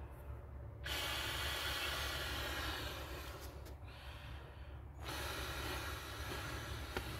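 Breath blown by mouth into an inflatable swim tube's valve: two long airy blows, starting about a second in and again about five seconds in, with a short pause between.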